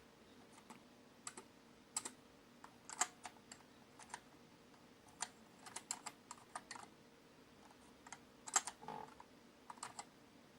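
Keys being pressed on an XMIT Hall effect keyboard: irregular, fairly quiet key clicks, some single and some in quick runs of two or three, with short pauses between.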